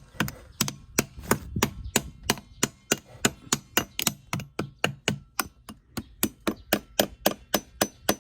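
Small hammer tapping rapidly and evenly, about five light blows a second, to settle masonry into place.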